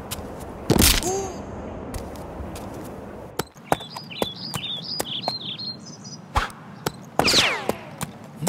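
A string of dubbed-in sound effects. Short clicks run throughout, with a loud whoosh about a second in, high chirping warbles in the middle and a loud burst with falling whistles near the end.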